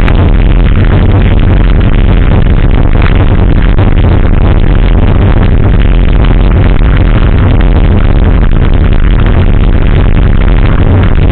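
Loud, distorted mix of electronic dance music with a steady beat and race vehicle engines running and revving.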